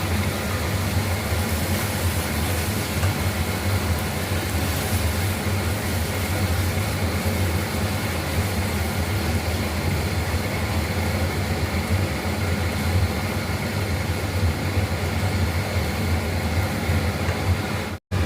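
Steady machine hum with an even whirring hiss, like a motor-driven fan running. It cuts out for an instant just before the end.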